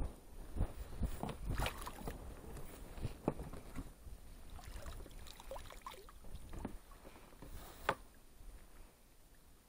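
Water splashing and dripping, with scattered knocks, as a pike in a landing net is lifted out of the lake and brought into the boat; one sharp knock comes about eight seconds in, and it goes quieter after.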